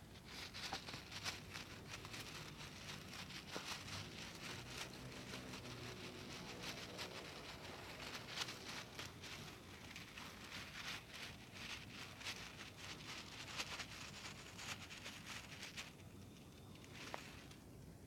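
Dense close-up crackling and scratching on a mini microphone, a fast stream of tiny clicks and rustles that eases off about two seconds before the end.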